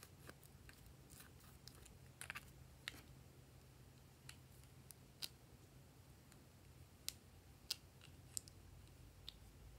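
Faint, scattered plastic clicks and light scrapes from cupcake-shaped plastic lip balm containers being opened and a plastic spatula scooping balm from inside them, over a low steady hum.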